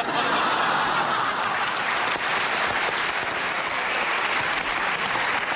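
Studio audience applauding, starting suddenly and holding steady.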